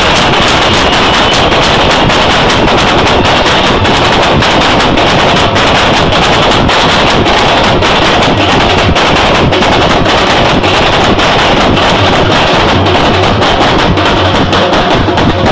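Loud, fast drumming from a percussion ensemble, a dense run of rapid strokes that keeps going without a break.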